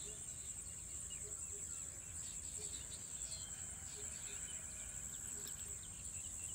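Steady high-pitched insect chirring, with many short bird chirps scattered over it.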